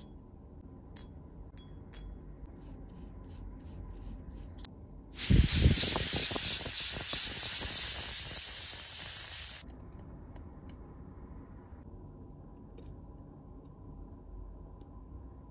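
Brush scrubbing a steel watch movement bridge in a dish of cleaning fluid: a loud wet hissing rasp lasting about four seconds, from about five seconds in. Before it come a few light clicks of steel tweezers on the parts.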